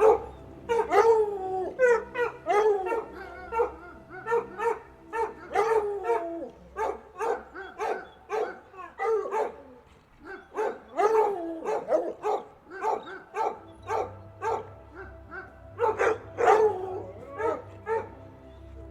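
A dog barking over and over, about one or two barks a second, some calls bending up and down in pitch, with a short lull about halfway through and a close run of barks near the end.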